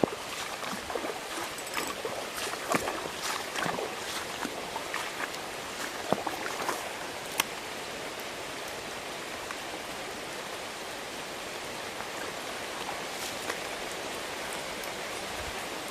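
Small stream running steadily, with scattered sharp ticks and splashes through the first half that thin out later.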